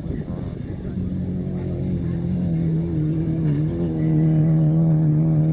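Autocross race car's engine running hard at high revs, its note held fairly steady with a brief dip about halfway through, growing louder as the car comes closer.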